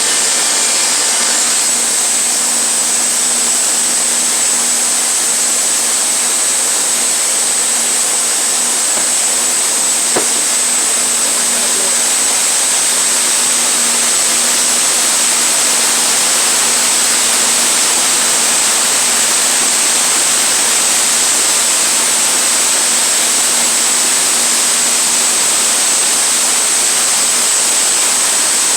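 Sawmill running steadily, a loud even noise with a high whine over it, with one brief click about ten seconds in.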